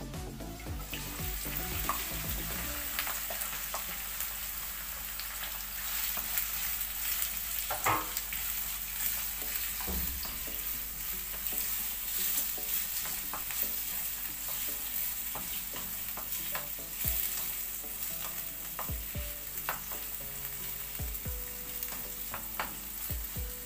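Sliced red onions sizzling in a hot frying pan, stirred with a wooden spatula, with scattered scrapes and taps of the spatula against the pan.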